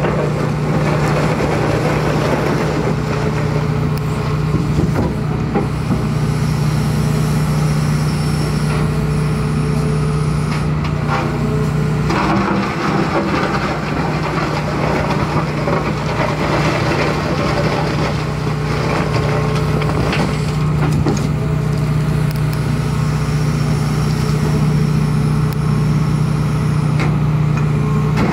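Hitachi ZX210-5 tracked excavator's diesel engine running steadily under hydraulic load, its low note dipping briefly about halfway through, with the bucket crunching and scraping through mud.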